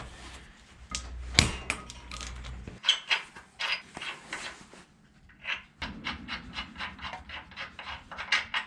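Socket ratchet clicking and small metal clicks and clinks as nuts are backed off threaded studs and handled, with a sharp knock about a second and a half in and a run of quick small clicks in the second half.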